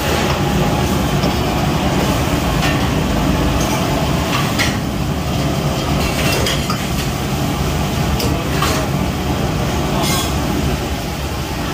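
Busy commercial kitchen: the steady rush of a high-flame gas wok burner, with a metal ladle clinking and scraping against the wok now and then.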